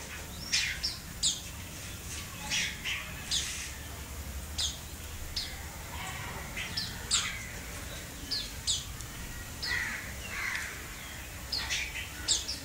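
Red-whiskered bulbul calling: short, bright chirping phrases at irregular intervals, about one or two a second, some in quick pairs.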